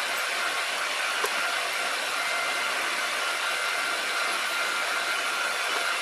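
Bernardo BF 30 G milling machine's spindle running steadily as a 4.2 mm twist drill bores the tap hole for an M5 thread into an aluminium block lubricated with spirit. A thin steady high whine rides over the even machine noise.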